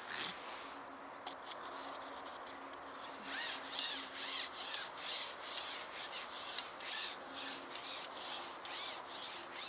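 Rhythmic scraping strokes, about two a second, starting about three seconds in.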